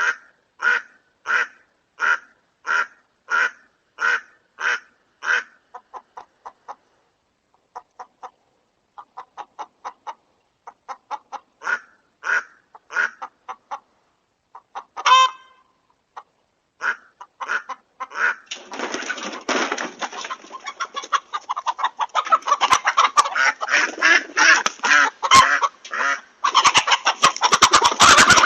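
Chickens giving alarm calls. A steady run of repeated squawks comes at about one and a half a second, then sparser calls with one loud squawk about halfway through. From about two-thirds of the way in, many birds break into dense, overlapping cackling that grows louder toward the end.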